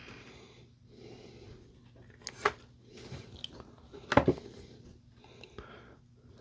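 Small jewellery hand tools and silver wire being handled: soft rubbing, with a sharp click about two and a half seconds in and a louder double click about four seconds in.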